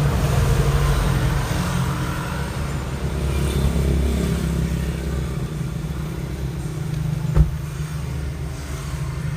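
Tata car's engine running steadily, with one sharp click about seven seconds in.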